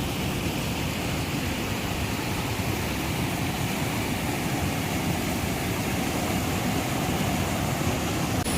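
Rushing water of a rocky waterfall and stream, a steady, even roar.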